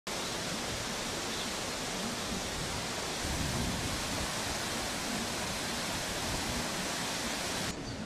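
The Hukou Waterfall on the Yellow River: a huge volume of water pouring and crashing over the falls, heard as a steady rushing noise. It turns slightly duller and quieter near the end.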